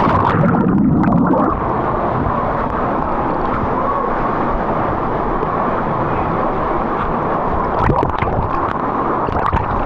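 Steady rush of water at a waterfall and its plunge pool, with a heavier surge of churning water in the first second or so and a few sharp splashes about eight seconds in.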